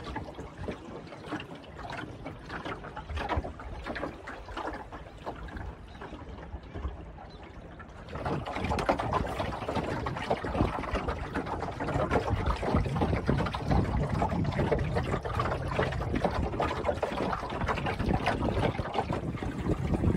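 Water lapping and gurgling along the hull of a small wooden Ilur sailing dinghy under way. It turns suddenly louder about eight seconds in.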